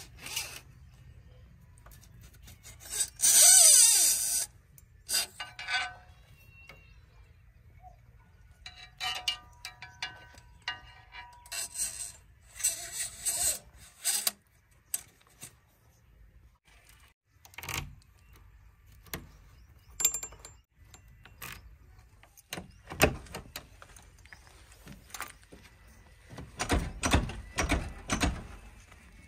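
A screwdriver scraping, clicking and tapping against metal parts of a backhoe loader's engine, with one loud screech about three seconds in and more scraping later. Near the end come several low thumps and knocks at the cab.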